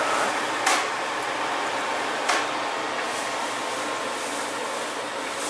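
Steady whooshing hiss of sauce cooking in a small kitchen, with two light knocks, about a second in and about two seconds later.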